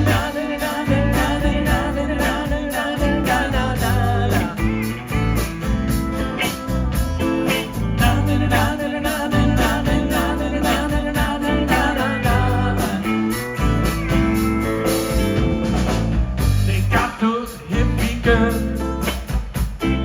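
A band playing a bluesy country song with guitar over a steady low beat, with a singer's voice.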